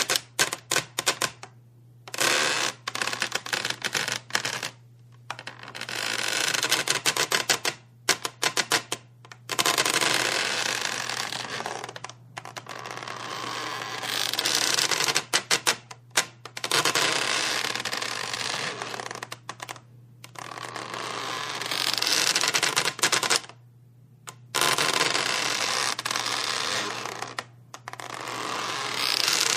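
Wood creaking under strain in a series of long creaks, each a few seconds long and made of rapid crackling clicks, with short pauses between them. A low steady hum runs underneath.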